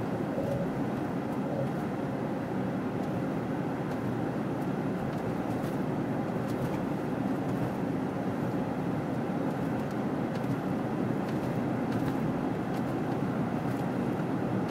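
Steady road and engine noise of a vehicle driving through snow, heard from inside it, with a few faint ticks.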